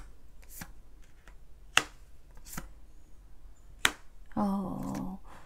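Tarot cards tapped and set down on a table: five or so separate sharp clicks spread over about four seconds. A short hummed 'mm' comes near the end.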